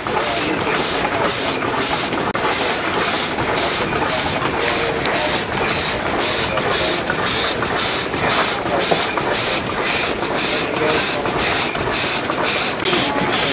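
Model vertical marine steam engine running on live steam: a steady, even rhythm of steam exhaust puffs and hiss, about two a second, over the mechanical running of the engine.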